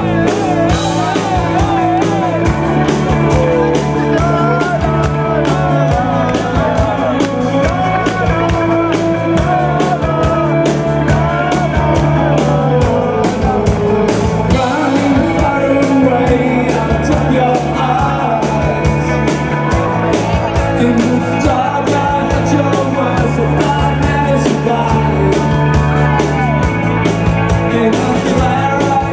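Live rock band playing a song: distorted electric guitar and drums under a male lead vocal.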